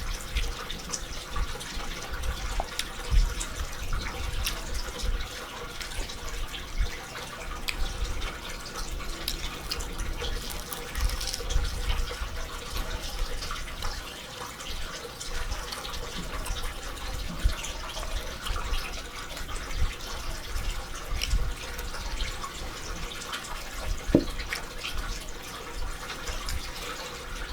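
Close-up eating sounds of someone chewing a chimichanga: a steady run of small wet mouth clicks and smacks with soft low thumps.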